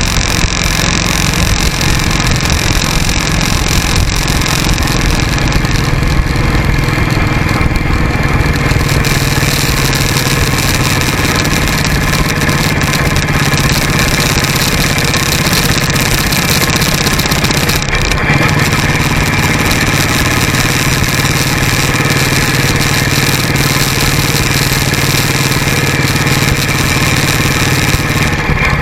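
Motorcycle engine running steadily while riding along, mixed with a continuous rush of wind and road noise.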